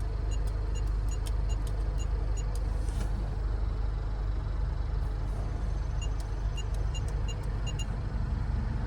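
Steady low road and engine rumble inside a moving car's cabin, with faint light clicks coming and going over it.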